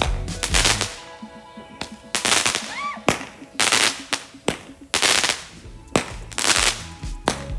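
Consumer fireworks exploding: a rapid, irregular string of sharp bangs, about a dozen over the stretch, some with a short crackling tail.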